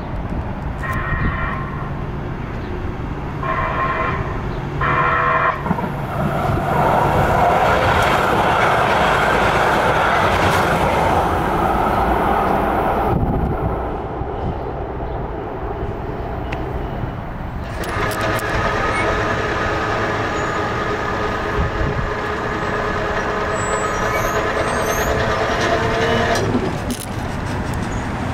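Los Angeles Metro light-rail train at a street-level crossing: short horn toots in the first few seconds, then a long loud stretch of the train going by. Later comes a steady whine of several tones that cuts off suddenly near the end.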